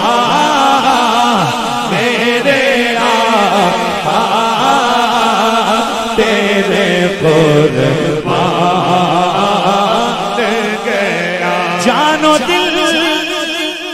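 Naat recitation: a man chanting a devotional Urdu verse into a microphone, with other voices chanting along.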